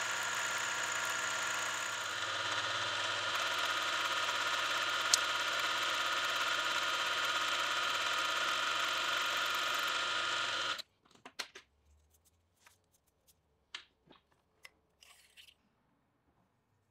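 Milling machine spindle running steadily as an end mill cuts into the brass back piece of the box. It stops suddenly about eleven seconds in, followed by near silence with a few faint clicks.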